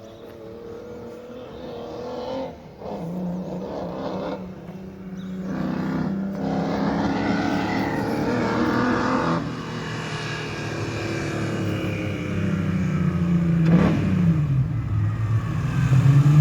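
BMW E30 spin car's engine revving hard, its pitch repeatedly climbing and dropping, getting louder toward the end.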